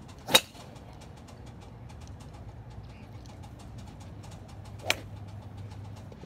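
Golf club striking a ball on a full swing: a single sharp crack about a third of a second in, the loudest sound here. A second, quieter crack comes about five seconds in.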